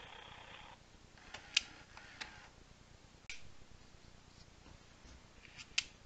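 A handful of faint, sharp mechanical clicks from a plush animatronic macaw toy as it moves its head and beak, about five spread out, the loudest near the end. A short noisy sound from the toy cuts off just under a second in.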